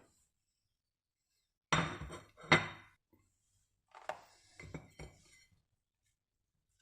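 Kitchenware being handled: after a pause, two sharp knocks about a second apart, then a few lighter clinks and taps.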